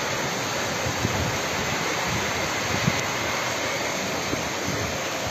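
Heavy rain pouring down in a strong wind, a steady rushing hiss, with gusts buffeting the microphone a few times.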